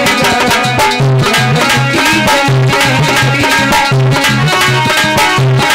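Bhajan music playing: a held melody over a steady, rhythmic drum beat with low, bending drum strokes.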